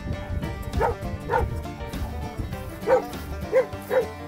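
A dog barking in short single barks, about five of them spaced unevenly.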